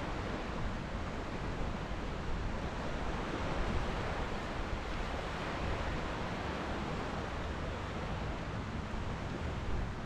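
Ocean surf washing steadily onto a sandy beach, swelling a little midway, with wind rumbling on the microphone.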